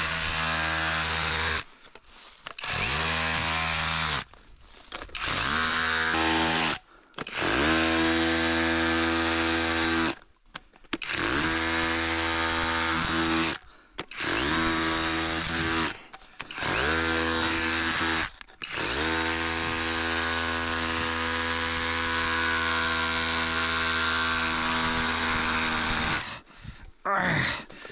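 A handheld electric power tool is switched on and off in about eight runs. Each run winds up to a steady whine and winds down again, and the last and longest lasts about seven seconds. It is being used to open a stone nodule.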